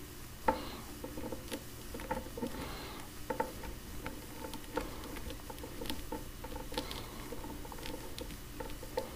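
Scattered light clicks and taps of plastic as hands work a toy weapon into an action figure's tight-gripping hand, with a sharper click about half a second in.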